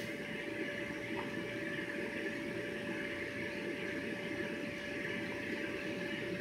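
Steady hum of an electric blower fan keeping an inflatable water slide inflated, with a constant whine held on one pitch.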